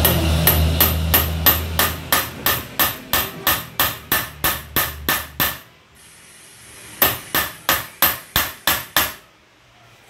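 Hammer striking metal in steady blows, about three a second: a run of some seventeen strikes, a pause of about a second and a half, then about seven more. A low hum runs under the first run and stops when it ends.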